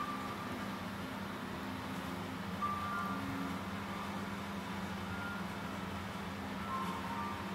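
Soft background music: sparse, high held notes over a steady low drone.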